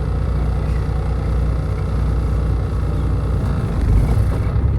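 Semi truck's Cummins ISX diesel engine running with a steady low rumble, growing louder for a moment about three and a half seconds in as it is given throttle.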